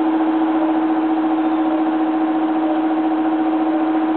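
Steady electric motor hum with one strong pitched tone and fainter overtones over an even whir, like a fan or blower running without change.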